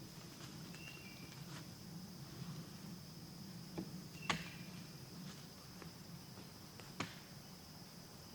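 Faint outdoor ambience: a steady high-pitched insect drone, with a few sharp knocks about four and seven seconds in.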